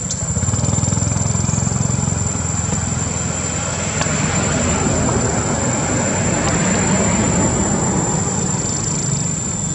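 A motor vehicle's engine running nearby with a steady low rumble. Road noise swells louder through the middle and then eases, as a vehicle passes.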